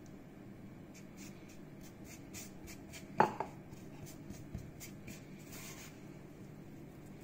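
Hands kneading and rubbing a floury bread dough on a countertop: a run of soft, short scuffing strokes, with one sharp knock about three seconds in.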